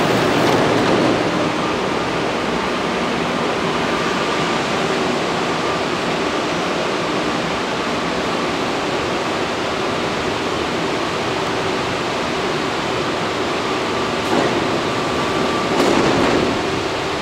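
Steady hiss of an MR-63 rubber-tyred metro train standing at a station platform, after a louder first second from the moving car. About 14 and 16 seconds in, two short thumps come as the train's doors close.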